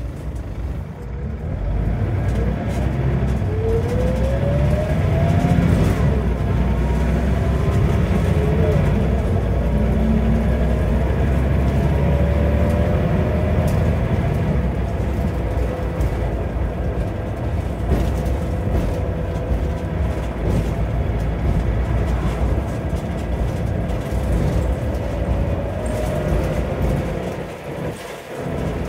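Scania DC9 9-litre five-cylinder engine and ZF Ecomat 5-speed automatic gearbox of a Scania N94UB OmniCity bus, heard from inside the saloon: a deep engine drone under a gearbox whine that rises as the bus accelerates.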